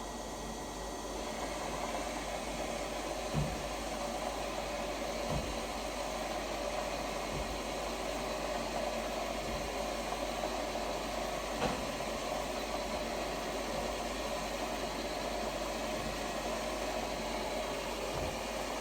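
Lefant M330 Pro robot vacuum running with a steady whirring hum, with a few soft knocks scattered through.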